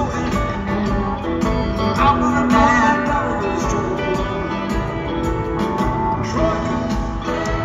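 Live rock band playing a song, with electric guitars to the fore over keyboards and drums.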